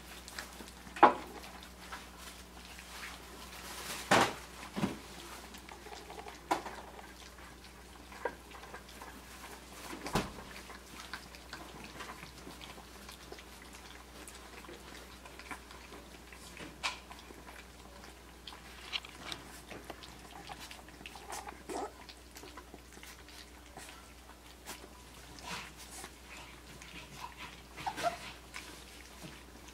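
Three-week-old Australian Shepherd puppies eating mush from a metal pan: scattered wet lapping and chewing with sharp clicks and knocks against the pan. The loudest come about a second in and about four seconds in.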